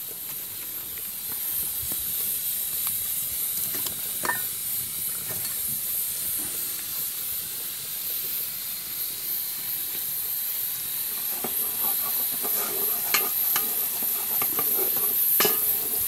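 Wood-fired stove burning with pots heating on it: a steady hiss, with a few sharp clicks of crackling wood or knocks scattered through.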